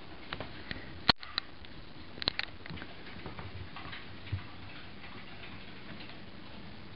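A few sharp clicks and taps, the loudest about a second in and a quick pair at about two and a half seconds, as a Richardson's ground squirrel scrambles across a hardwood floor close up, its claws clicking on the boards.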